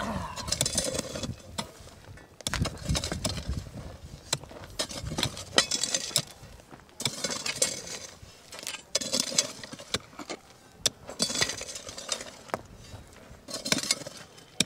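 Metal hoes (pavda) and pickaxes chopping into dry, stony soil and scraping loose earth out of a trench, with sharp clinks as metal strikes stone. The strokes come irregularly, a scrape every couple of seconds among scattered knocks.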